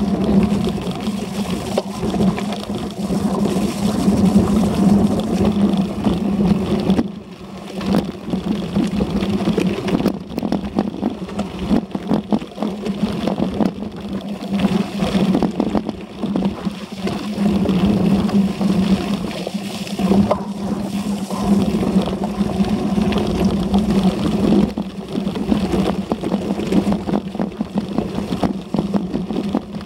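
Specialized Diverge gravel bike ridden over a rough, wet dirt trail. A steady droning hum and wind noise run under frequent rattles and knocks from the bumpy ground.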